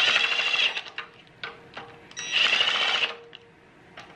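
Cordless impact wrench running the centre bolt of an idler pulley down on a 2JZ engine in two short bursts of rapid hammering, the second about two seconds after the first, with light clicks of the tool and socket in between.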